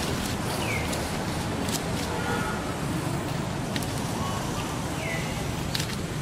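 Steady outdoor background noise, low and even, with a few faint, short, falling high chirps and scattered sharp clicks.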